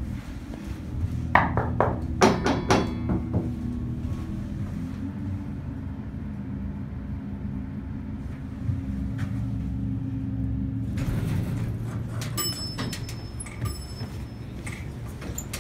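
Westinghouse hydraulic elevator running: a steady low hum of the car travelling, with a quick clatter of knocks a second or two in. About eleven seconds in, the doors slide with a rattling noise and several clicks.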